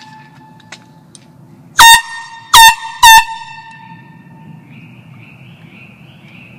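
Small handheld air horn sounded in three short, loud blasts in quick succession about two seconds in. Each blast swoops down in pitch at the start, then holds one high, piercing note with a ringing tail.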